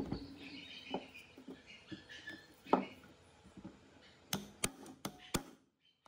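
Knocks and scrapes from the rusty metal blower housing being handled, then four sharp metallic clicks within about a second as a driver bit is worked into a rusted screw on the motor casing. Birds chirp faintly in the background.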